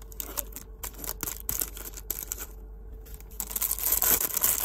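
Cellophane gift wrap around a plastic shower-gel bottle crinkling as hands pull it open: scattered small crackles at first, then denser, louder crinkling from about three and a half seconds in.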